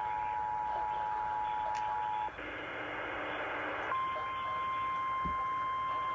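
Emergency Alert System attention signal: a steady two-tone chord that cuts off about two seconds in. Then comes a second and a half of static hiss, then a single steady, slightly higher tone from about four seconds in, the NOAA Weather Radio warning alarm tone.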